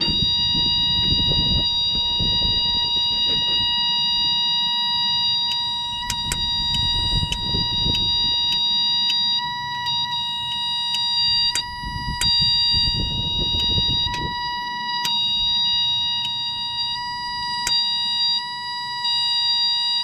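A steady high-pitched electric warning buzzer on the Case 1835B skid steer sounds with the ignition switched on. Over it come irregular sharp clicks as the distributor points are snapped open and shut by hand to test for spark. The spark is still not consistent.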